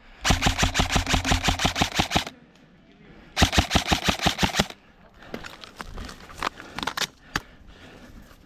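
Airsoft electric rifle firing two full-auto bursts, a two-second string of about ten shots a second and then a shorter one, followed by scattered lighter clicks and knocks.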